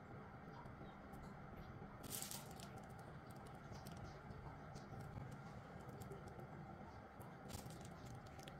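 Faint steady room hum with a few soft taps and two brief rustles, about two seconds in and near the end, from a plastic piping bag being squeezed to pipe butter cookie dough onto a silicone baking mat.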